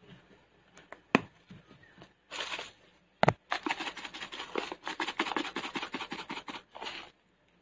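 Black pepper being added to a pot of soup: a couple of sharp clicks, then about three and a half seconds of rapid, scratchy rasping that stops abruptly near the end.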